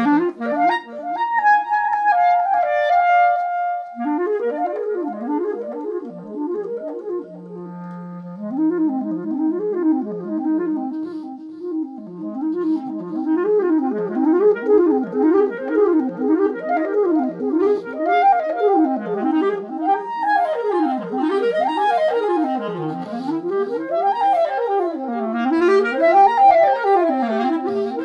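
Clarinet improvising, layered over itself through a loop station with delay: a short stepping phrase, a held low note about eight seconds in, then fast rising-and-falling runs that stack up and grow denser toward the end.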